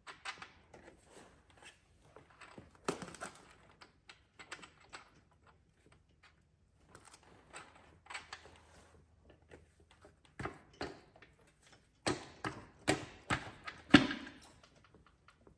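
Irregular clicks, clinks and knocks of metal hand tools being picked up and worked against engine parts. They are sparse at first and bunch into a quick run of sharper knocks near the end, the loudest about fourteen seconds in.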